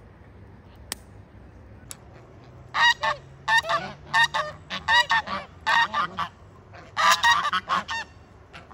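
Farmyard fowl calling loudly: a run of about a dozen short calls in quick groups, starting about three seconds in. Two sharp clicks come before it, about one and two seconds in.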